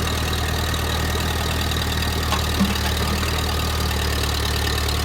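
Engine running steadily at an even, low pitch, with a small knock about two and a half seconds in.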